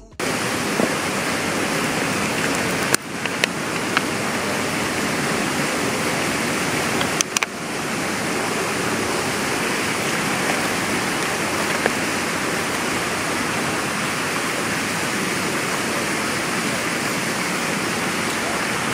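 Fountain jets splashing into the basin: a steady rush of falling water, with two brief knocks about three and seven seconds in.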